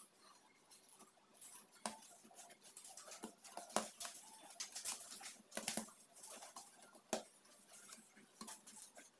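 Hands rounding small balls of bread dough on a granite countertop: soft, irregular taps and scuffs, with a few sharper taps.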